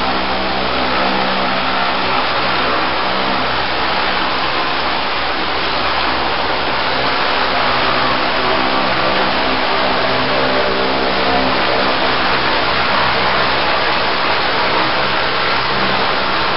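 High-pressure water-blasting lance jetting continuously against a barge hull to blast off barnacles: a loud, steady hiss of the water jet over the constant drone of the engine-driven pump.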